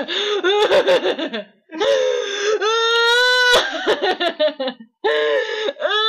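A person's voice making exaggerated crying and whimpering sounds, with long high-pitched wails that rise and then hold, one about halfway through and another starting near the end.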